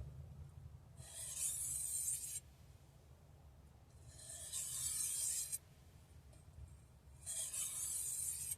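Edge of a Burrfection RYKY carbon-steel knife drawn slowly across a sharpening surface in three long, evenly spaced strokes: light deburring passes at the end of a sharpening.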